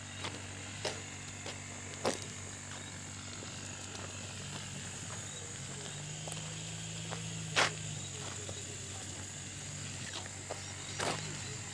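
Steady high-pitched insect drone from crickets or cicadas, over a low steady hum, with a few sharp clicks about two, seven and a half and eleven seconds in.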